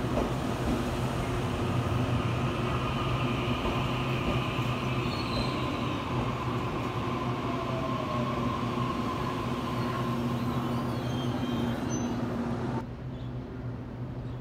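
Taiwan Railways EMU800 electric multiple unit at a station platform: a steady electrical hum with several humming tones and a faint falling whine from its traction and onboard equipment. The sound drops off sharply near the end.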